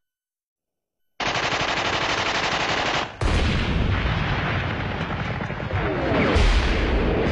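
After about a second of silence, rapid sustained machine-gun fire breaks in and carries on as a dense battle of gunfire. About six seconds in a brief falling whistle comes before a heavy low blast near the end.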